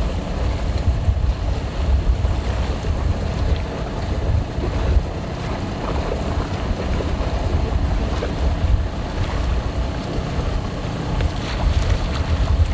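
Wind buffeting the microphone over the steady rush of water along a sailboat's hull as it moves fast under sail.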